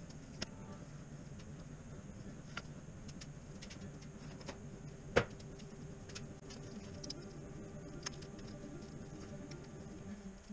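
Scattered faint clicks and taps of hand tools and metal parts being handled while working up under a car, with one sharper click about five seconds in, over a low steady hum.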